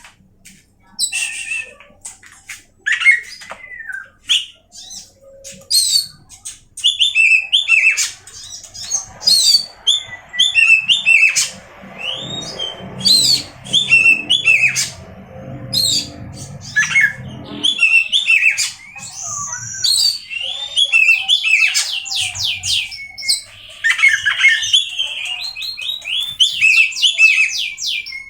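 Oriental magpie-robin (kacer) singing a loud, fast, varied song of sharp whistles, trills and harsh notes in quick phrases. A low rumble sits under the song for several seconds in the middle.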